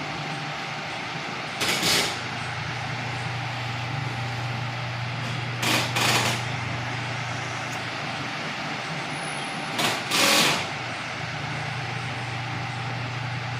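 Mondial Super Power 40 cm six-blade table fan running: a steady motor hum under the rush of moving air. Three brief, louder rushes come about four seconds apart.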